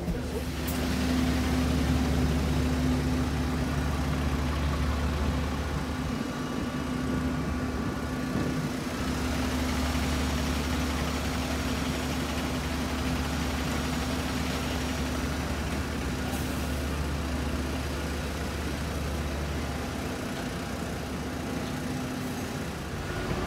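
Steady engine hum from airport apron machinery, a low constant drone under an even noise that holds throughout with only brief dips.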